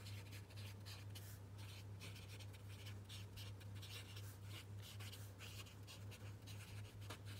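Marker pen writing on paper over a clipboard: faint, quick strokes of scratchy hiss as a heading is lettered by hand. A steady low hum lies beneath.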